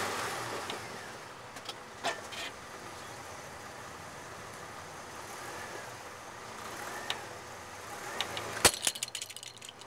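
A truck's engine running with a steady low noise as it starts to roll, then nearly nine seconds in a sharp crack as its tyre crushes a plastic puzzle cube, followed by a quick run of small clicks as the plastic pieces break and scatter.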